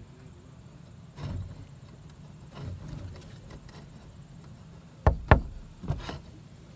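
Three sharp knocks close together about five seconds in, over a steady low rumble of wind on the microphone.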